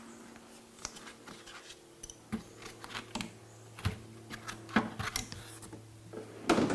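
Irregular light clicks, taps and small clatters of hand tools and bits being handled against a car pedal assembly on a workbench, with a louder knock near the end, over a faint steady hum.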